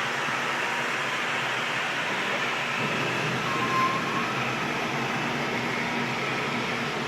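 ICE i20 walk-behind wet floor scrubber running, its motors making a steady, even machine noise. A brief high squeak comes about three and a half seconds in.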